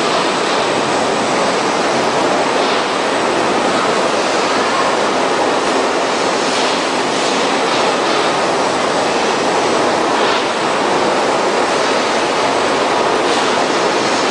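Industrial omelette dicer and its conveyor belts running, a steady, even machine noise.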